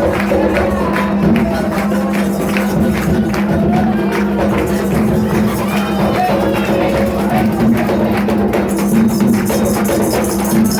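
Live percussion music with a tambourine and wooden knocks keeping a fast, steady beat, over a steady low hum.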